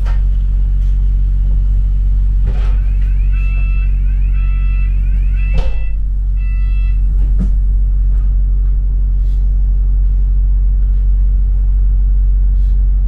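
London bus heard from inside the cabin: a steady low engine and road rumble with a few sharp knocks and rattles. A run of repeated electronic beeps sounds about three seconds in and lasts a few seconds.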